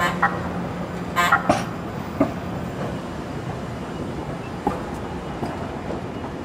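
Siemens light-rail train of the San Diego Trolley rolling past at low speed, with a steady running hum and irregular sharp clacks and knocks from the wheels over the rail joints. The clacks cluster about a second in.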